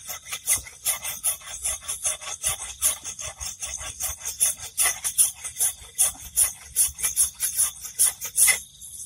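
A rapid, irregular dry rasping rattle of several clicks a second that stops abruptly near the end, leaving a faint steady high hum.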